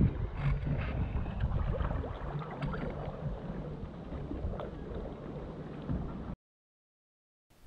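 Water lapping and dripping around a kayak sitting on calm water, with a few small splashes and drips. It cuts off suddenly about six seconds in.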